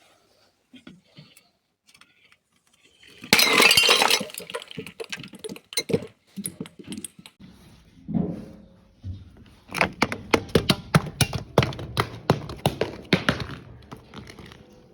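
Glass breaking: after a few quiet seconds, one loud crash of a glass bottle shattering, then scattered cracks and clinks of shards. Near the end comes a quick run of sharp crunching cracks as the broken glass is crushed.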